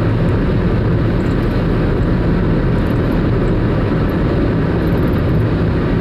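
Steady road and engine noise inside a moving car's cabin, a constant low rumble with no let-up.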